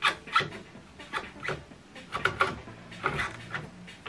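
Plastic clicks and knocks, about a dozen at an irregular pace, as ink cartridges are pushed and pressed into the inkjet printer's print carriage to check they are seated.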